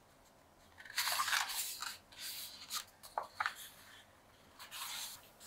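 Sheets of colored copy paper rustling in a string of short, irregular bursts, starting about a second in, as they are bent over by hand to be folded in half.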